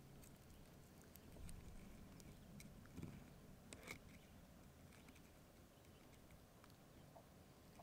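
Faint, scratchy clicks of a 9-inch Kershaw fillet knife slicing through a crappie's skin and flesh, with two slightly louder clicks about three and four seconds in.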